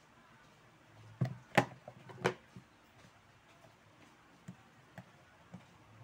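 Three sharp clicks from handling the hard plastic housing of a fan's rotary speed switch, followed by a few faint ticks.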